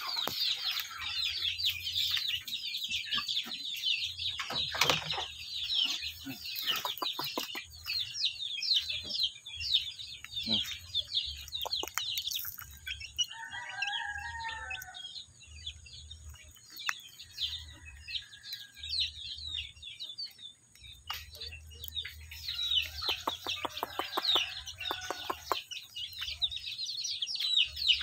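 Native chickens foraging: chicks peep rapidly and almost without pause, with one longer, lower hen call about halfway through and a few soft clicks.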